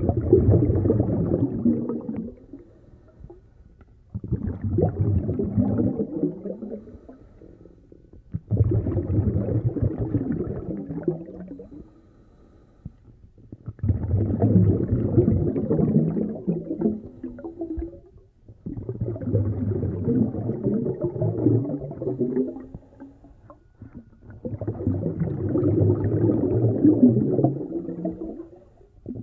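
A snorkeler's breathing through the snorkel, heard muffled from underwater: six long breaths, one about every five seconds.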